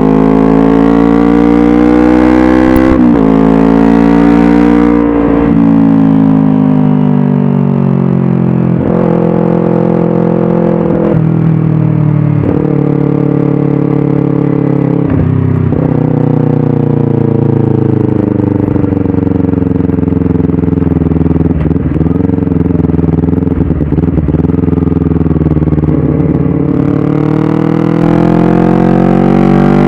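Kawasaki Ninja 250 parallel-twin engine through an aftermarket Tridente F22 slip-on silencer and stainless header, heard on the move. The revs fall off as the bike slows, with several sudden jumps in pitch like downshifts along the way, then climb steadily as it accelerates near the end.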